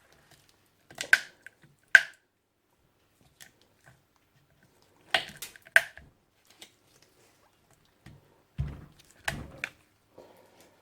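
Sharp cracks and snaps as the plastic case of a lead-acid car battery is cut and dug away around a terminal: four loud snaps spread over the first six seconds, then a few duller knocks near the end.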